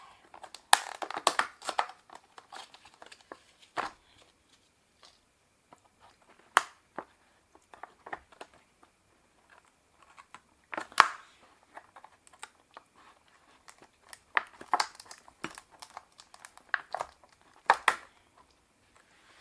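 Close-up eating sounds: irregular crunches, crinkles and sharp mouth clicks while chewing food.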